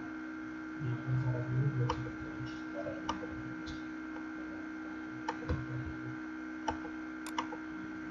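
Computer keyboard keys being typed, heard as scattered sharp clicks over a steady electrical hum, with low muffled rumbles about a second in and again past five seconds.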